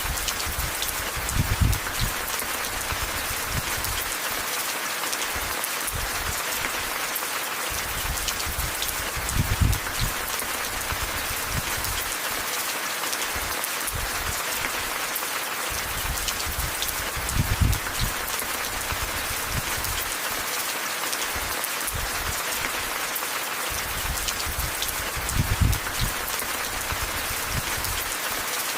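Steady rain falling on a surface. A brief low rumble swells up four times, about eight seconds apart.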